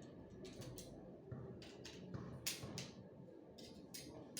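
A few short scrapes and clicks of objects being handled, about four in all, the sharpest a little over halfway through.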